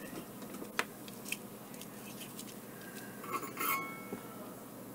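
Small metal tools clinking and tapping during soldering work on a battery pack's tabs: a sharp tick about a second in, a lighter one just after, and a short cluster of ringing metallic clinks about three and a half seconds in.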